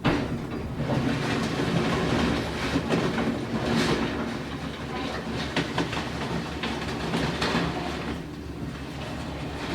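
Heavy demolition machinery running, with a low steady engine hum under continuous crackling, clattering and crunching of debris as the garage is torn down.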